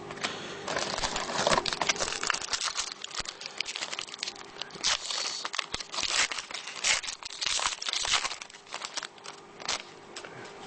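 Wrapper of a Panini Threads basketball card pack being torn open and crinkled by hand: a long run of crackling rustles with a few louder tears.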